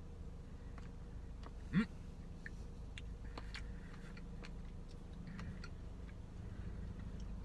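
Spoon clicking and scraping against a Blizzard cup while eating ice cream: a scatter of light, irregular ticks, with one louder short sound rising in pitch about two seconds in, over a steady low rumble.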